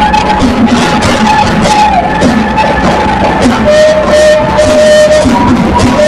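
Loud live worship band music with drums and cymbals and long held notes that change pitch partway through.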